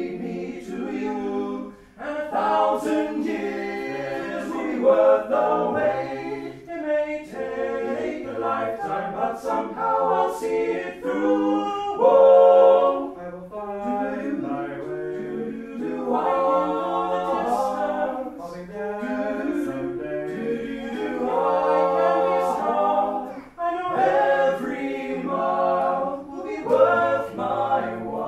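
Several voices singing together without instruments, in continuous phrases with brief breaths between them.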